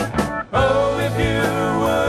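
Gospel band music with singing. The music drops out briefly about half a second in, then comes back in with steady held notes.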